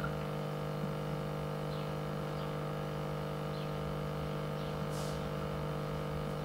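Steady low electrical hum made of several steady tones, with a faint brief hiss about five seconds in.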